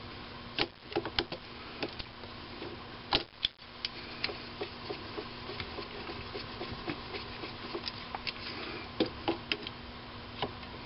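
Small irregular clicks, taps and scrapes of a digital caliper being handled and its jaws set against a small aluminium part held in a lathe chuck, measuring its wall thickness. A faint steady hum sits under them throughout.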